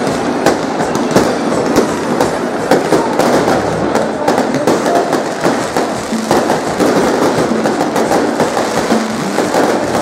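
Aerial fireworks going off: many sharp bangs and crackling bursts in quick, irregular succession.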